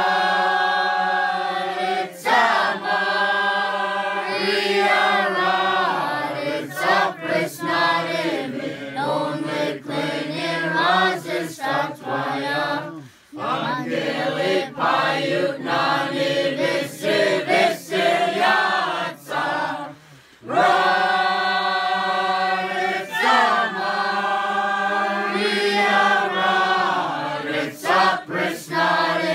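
A group of voices singing a Slaaviq carol together, unaccompanied, with long held notes, breaking off twice for a moment, about 13 and 20 seconds in.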